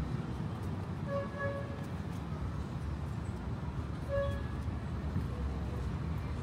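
Urban street traffic with a steady low rumble, and a car horn honking: two short beeps about a second in and one more about four seconds in.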